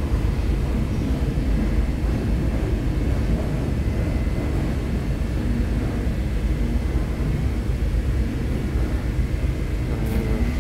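A ferry's engines running with a steady low rumble, with a faint steady whine above it.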